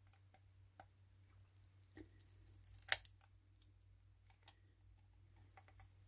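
Small knife blade scraping and clicking against the plastic underside of a computer mouse, working off a Teflon skate and its leftover adhesive. Mostly faint light clicks, with a short scratchy scrape about three seconds in.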